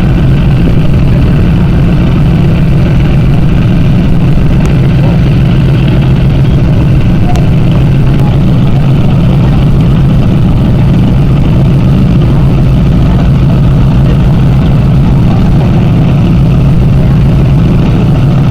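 Miss Geico racing powerboat's engines running steadily at low speed, a loud, even drone without revving.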